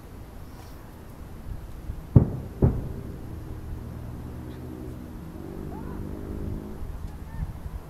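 Two aerial firework shells bursting about half a second apart, about two seconds in: sharp booms, each trailing off in a low rolling echo.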